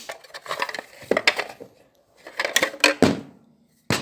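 An electrical junction box and its parts being handled, giving irregular clicks and clattering in three short clusters.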